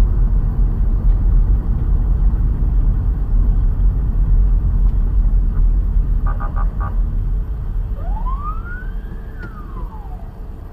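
A car driving, heard through a dashcam: a loud, steady low rumble of engine and road noise. About six seconds in come four quick short beeps, and near the end a single tone that rises and then falls in pitch.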